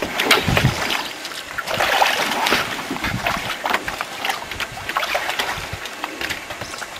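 Gear being unloaded from aluminium canoes: heavy canvas packs rustling and bumping, with irregular knocks and a heavier thump about half a second in.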